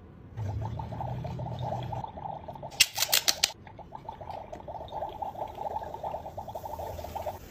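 A toy giving a rapid, steady trill of fast ticks. A cluster of sharp clicks comes about three seconds in.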